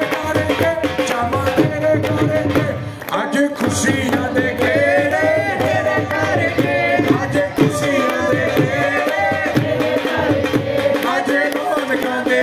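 Live singing through a microphone over rhythmic drumming, with a crowd clapping along.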